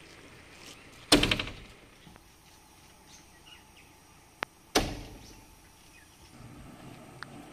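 Two loud bangs about four seconds apart, the first with a brief rattle, each dying away over about half a second, over faint birdsong.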